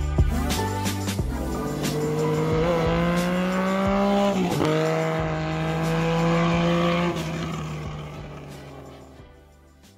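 An engine revving up as it accelerates, with a sudden drop in pitch about four and a half seconds in like a gear change, then climbing again before fading away over the last few seconds. Music in the first second.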